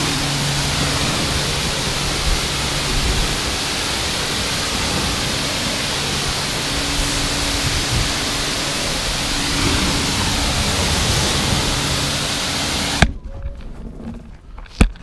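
Karcher K4 pressure washer spraying water onto car bodywork: a loud steady hiss of the jet with a low hum underneath. It cuts off sharply about 13 seconds in as the trigger is released, followed by a few knocks.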